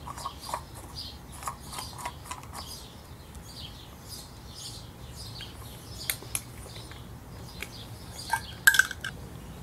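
Handling sounds of PVC pipe gluing: irregular small clicks and taps of plastic fittings and a primer dauber being worked, with a sharper metallic clink near the end as the dauber goes back to the metal primer/cement can.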